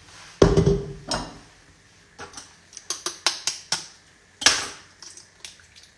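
A stainless steel stand-mixer bowl is set down on the counter with a knock and a short ring. Then eggs are cracked against the bowl and the shells handled, making a run of short clicks and taps, with one louder crack about four and a half seconds in.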